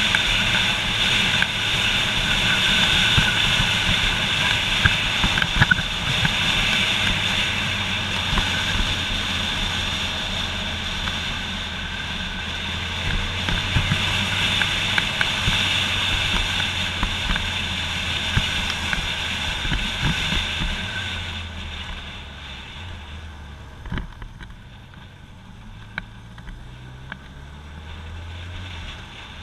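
Motorcycle running at road speed with heavy wind and road noise. About 21 seconds in, the wind noise drops away as the bike slows, and near the end the engine note climbs as it accelerates again.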